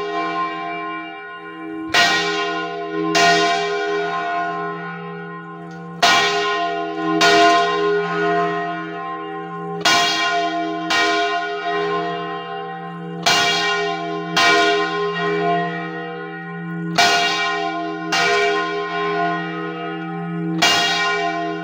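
Church bell cast in 2000, swung full circle on its wooden counterweight yoke, the clapper striking once on each side of the turn. The strokes come in pairs about a second apart, a pair roughly every four seconds, over a steady ringing hum, rung as a rogation peal.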